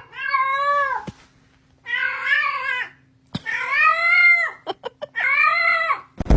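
A cat yowling: four long, drawn-out meows of about a second each, with a wavering pitch, separated by short pauses and a couple of faint clicks.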